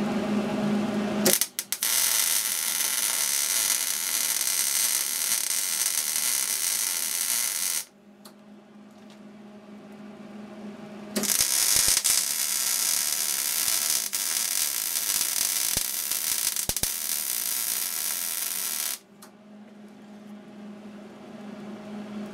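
Electric arc welding on steel: two continuous weld runs of about six and eight seconds, each a loud, even crackle and sizzle of the arc, with a low steady hum in the pause between them.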